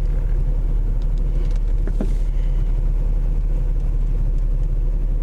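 Steady low rumble of a car running, heard from inside the cabin, with a short faint squeak about two seconds in.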